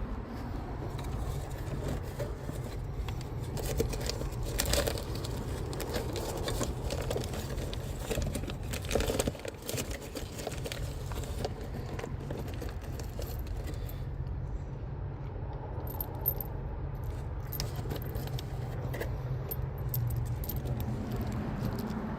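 Small metal objects jingling and clinking as they are handled, loudest around four to five seconds in and again around nine seconds, over a steady low rumble.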